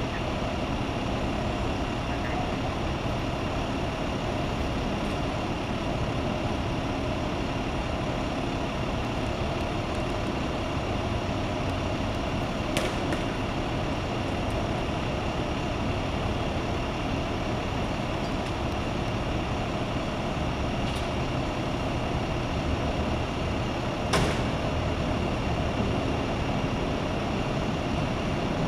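Steady idling of a parked fire-rescue ambulance's engine, an even low rumble, with a sharp click about thirteen seconds in and a louder one about twenty-four seconds in.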